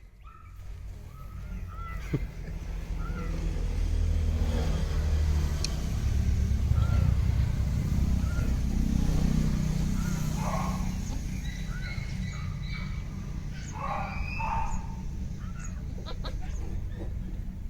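Outdoor background: a low rumble that builds up, peaks midway and slowly eases off, with small birds chirping repeatedly throughout and a few louder calls near the end.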